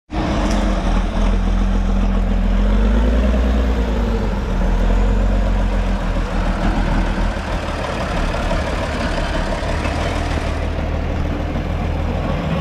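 Praga V3S six-wheel-drive trial truck's diesel engine working under load as the truck climbs over steep off-road ground, with a brief rise and fall in engine pitch about three to four seconds in.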